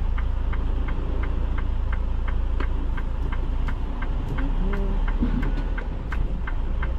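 Semi-truck diesel engine idling, heard from inside the cab, as a steady low drone. Over it runs an even ticking about three times a second.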